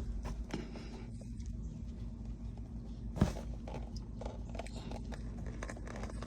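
Faint clicks and scrapes of an engine oil drain plug being unscrewed by hand, with one sharper click about three seconds in, over a low steady hum.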